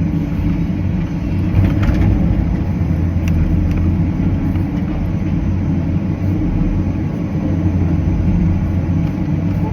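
Cat 325CL excavator's diesel engine running steadily under load while the machine works a stump loose, with a few faint clicks about two and three seconds in.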